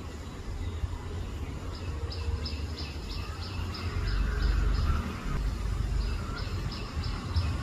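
A bird calling in a rapid series of short high chirps, about three a second, in two runs, over a steady low rumble.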